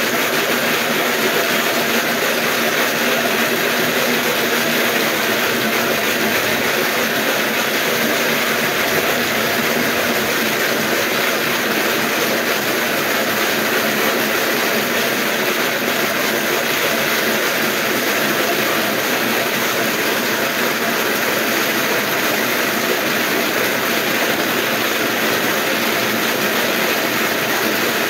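Wooden-slat dog treadmill (slat mill) running under a running dog: a steady, unbroken rolling rattle of the slats over the rollers.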